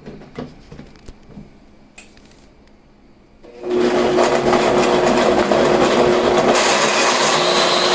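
Blender switched on about three and a half seconds in and running steadily, puréeing garlic, bay leaves, spices and beef stock into a marinade. A few faint clicks of handling come before it starts.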